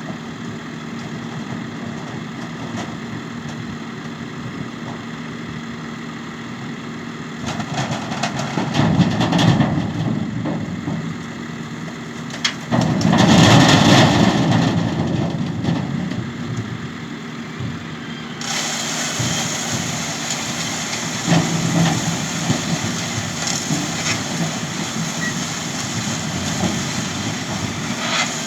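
Tractor engines and sugar beet harvesting machinery running steadily. The sound swells louder twice, the second time about 13–15 s in being the loudest, then changes abruptly about 18 s in to a brighter engine sound.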